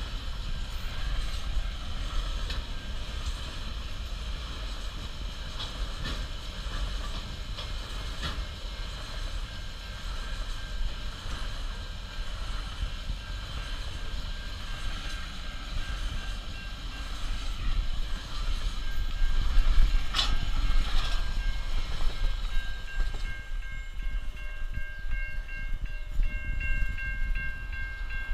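Long freight train of container wagons rolling past at a level crossing, a steady rumble with wheel noise, loudest about two-thirds through with a sharp knock. Near the end the rumble eases and several thin, steady high tones ring out.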